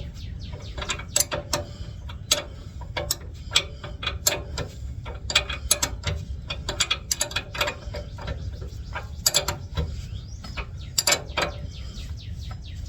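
Metric wrench working the idler arm's mounting bolt: a long run of sharp, irregular metal clicks as the wrench is swung and reset on the nut.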